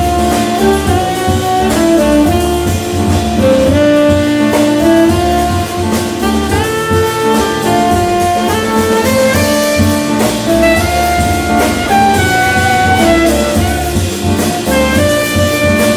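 Live jazz quintet playing, with the saxophone out in front over drums and cymbals, double bass, hollow-body electric guitar and piano.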